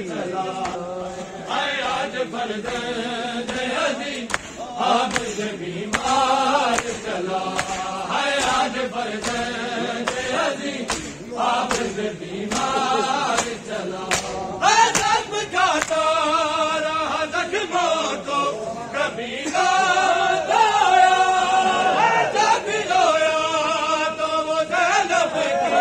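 Men's voices chanting a noha, a Shia mourning lament, in unaccompanied chorus, with sung phrases rising and falling and some held long notes. Sharp slaps are heard now and then, typical of matam, hands striking bare chests.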